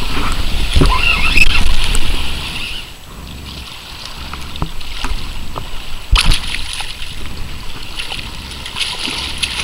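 Sea waves washing on the shore, swelling loudest in the first few seconds and again near the end, with wind buffeting the microphone and a couple of sharp knocks.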